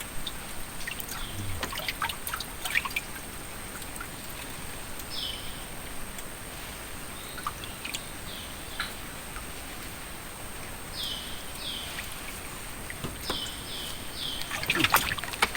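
Water trickling and dripping, with scattered small clicks, short high chirps that fall in pitch now and then, and a thin steady high tone; louder splashy clicks near the end.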